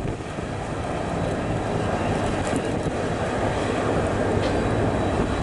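A steady engine drone mixed with rushing wind noise, holding level throughout.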